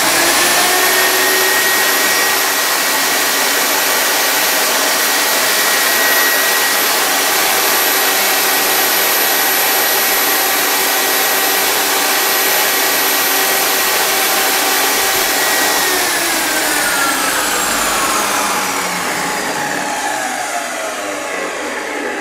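Bosch GTS1031 10-inch table saw running free with no cut: the motor and blade spin up to speed at the start, then run with a steady high whine, loud at about 94 decibels on a sound level meter. About 16 seconds in it is switched off and winds down, the whine falling in pitch.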